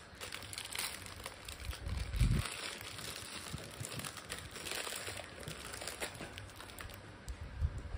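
Thin clear plastic wrapping crinkling and rustling as it is pulled and picked off a small pink ball by hand. There are a couple of dull low thumps, about two seconds in and near the end.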